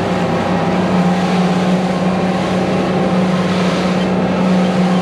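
Motorboat engine running steadily at cruising speed, with a loud rush of wind and water as the hull moves fast over the sea.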